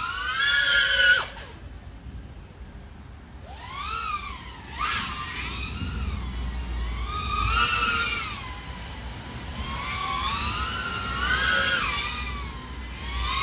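3.5-inch FPV quadcopter (iFlight AOS 3.5 V5, XING 1504 3100KV motors on Gemfan props) in flight: a high motor-and-prop whine whose pitch rises and falls with the throttle. It cuts away just after a second in, returns about three and a half seconds in, and swells again at several throttle punches.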